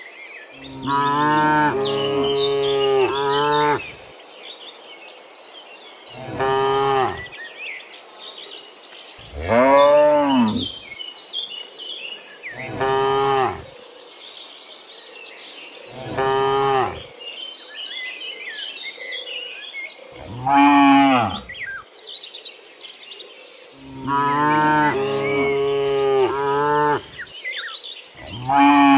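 Cattle mooing: about eight separate moos a few seconds apart, some short and some long and drawn out, with faint high chirping between the calls.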